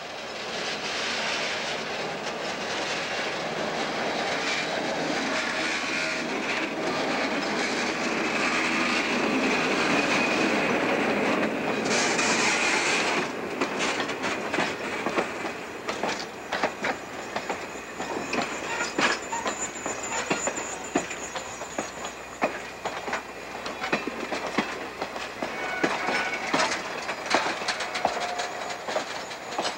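A diesel locomotive's engine building in level as it approaches and passes over roughly the first thirteen seconds. Then a long string of passenger cars rolls by slowly, with a steady run of wheel clicks over rail joints and a faint high wheel squeal.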